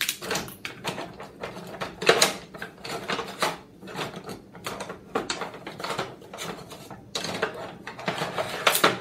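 Spatulas and other cooking utensils clattering and knocking together as they are rummaged through in a wooden kitchen drawer, in an irregular run of clicks and knocks. The loudest knocks come about two seconds in and near the end.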